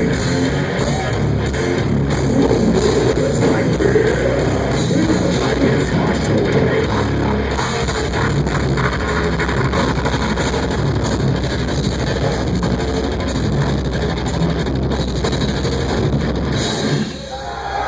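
Death metal band playing live, with heavily distorted guitars and pounding drums at full volume. The song breaks off about a second before the end.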